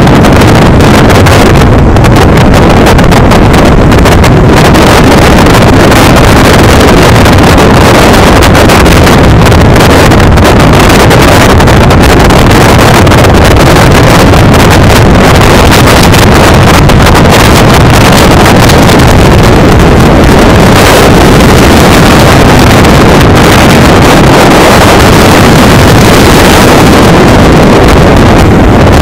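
Loud, steady wind rush on the microphone of a camera riding on the open bed of a moving flatbed truck, mixed with the rumble of the truck driving along.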